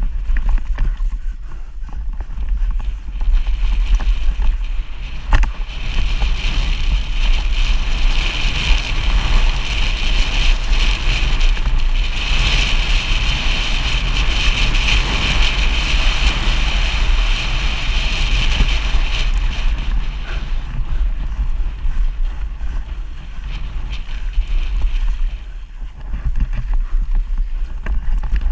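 Wind buffeting the helmet-mounted camera's microphone and tyres running on dry dirt and gravel as a downhill mountain bike descends at speed, with a sharp knock from the bike about five seconds in. The higher hiss grows louder through the fast middle stretch and eases near the end.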